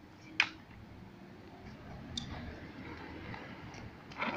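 A skateboard set down on a concrete path: one sharp clack about half a second in, then a fainter click a couple of seconds later over a faint low rumble.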